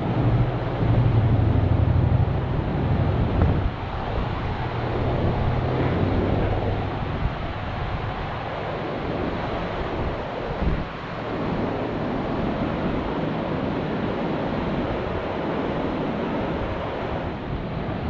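Creek in flood at a 9.5-foot stage, its fast muddy water rushing steadily past the bank. A low hum sits under the rush for the first few seconds.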